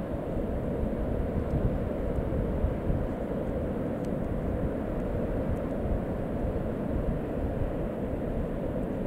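Wind buffeting the camera microphone in a low, gusty rumble over the steady rush of distant surf.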